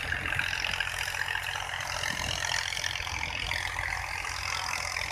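Farm tractor's diesel engine running steadily, with a steady hiss above it.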